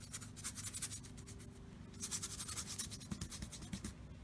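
Paintbrush being cleaned: the bristles scrubbed in quick rubbing strokes, in two bouts with a short pause between.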